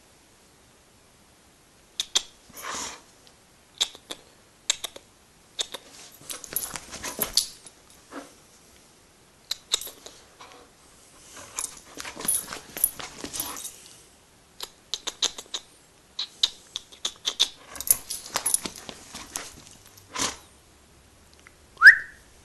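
Dog playing tug-of-war with a rope toy: irregular bursts of rustling, shaking and clicking, with the metal tags on its collar jingling. A short rising squeak near the end.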